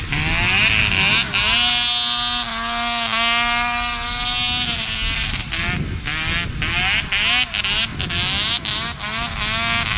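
Prototype Redline snowmobile engines running and revving, the pitch rising and falling again and again, with one steady high note held from about a second and a half in until about five seconds.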